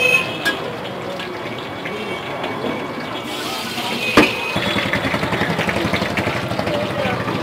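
Bhajiya deep-frying in hot oil in a large kadai, a steady sizzle over a din of traffic and voices. One sharp click comes about four seconds in.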